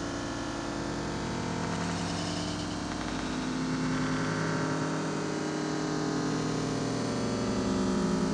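Droning synthesizer: a low sustained chord over hiss, its notes shifting about three seconds in and again near the end.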